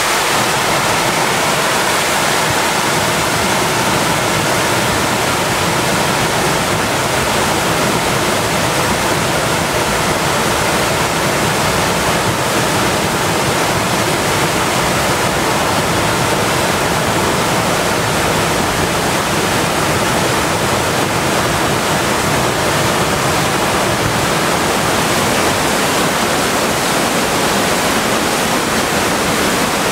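Flash flood of muddy water pouring over a sandstone ledge and churning down the canyon channel: a loud, steady rushing roar that deepens right at the start as the flood front comes over.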